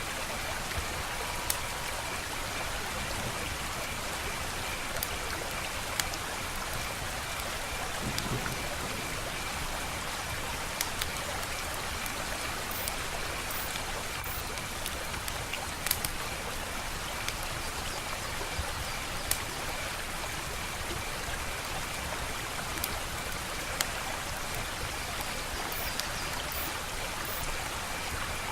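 Wood fire crackling: a steady hiss with scattered sharp pops and snaps, a few louder ones spread through. A faint steady high tone runs underneath.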